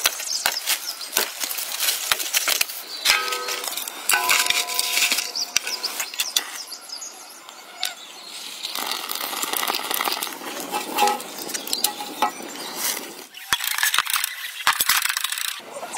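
A run of sharp snaps and crackles from dry branches and twigs being broken and handled, with scattered metallic clinks.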